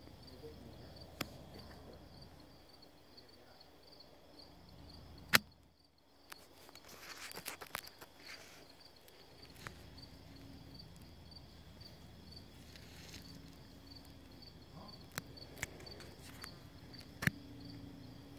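Faint, steady chirping of insects in an even pulse, with a few sharp clicks, the loudest about five seconds in.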